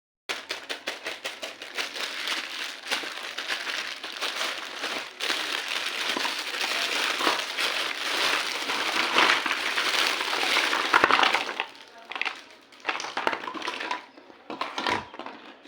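Toy packaging being torn open and crinkled: dense crackling and rustling for about eleven seconds, then sparser separate rustles and clicks.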